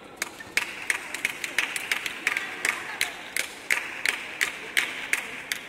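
A few people clapping, a ragged run of claps at about three a second that slows toward the end.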